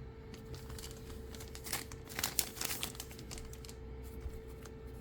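Foil trading-card booster pack wrapper crinkling as it is handled and opened, with a burst of crinkles about two seconds in.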